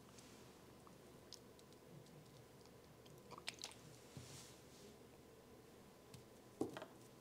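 Faint clicks and taps of a plastic saline bottle and contact-lens case being handled, with a brief soft hiss a little after halfway and a sharper tap near the end.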